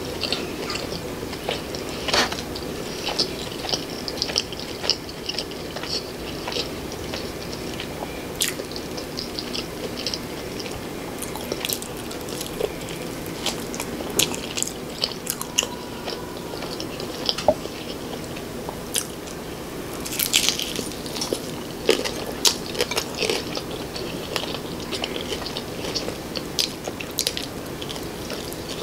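Close-miked eating of crispy homemade fried chicken: crunchy bites into the breaded skin followed by chewing, with many short crisp crackles and wet mouth sounds, and a thicker run of crunching about two-thirds of the way through.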